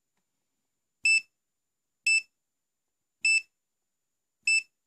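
Winapex 268B clamp multimeter's buzzer giving four short, high-pitched key beeps about a second apart as its function buttons are pressed to change measuring mode.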